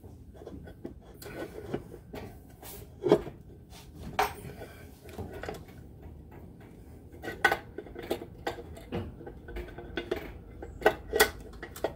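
A metal bell housing being worked onto an engine block by hand: scattered metallic clinks and knocks of metal against metal. A few sharper knocks come about three and four seconds in and again near the end.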